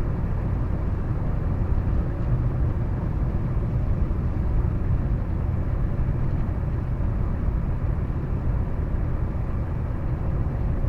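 Steady road and engine noise inside a moving car's cabin, a low even drone with no distinct events.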